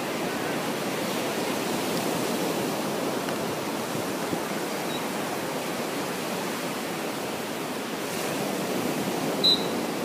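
Steady wash of sea surf, with one short, high-pitched tone about nine and a half seconds in.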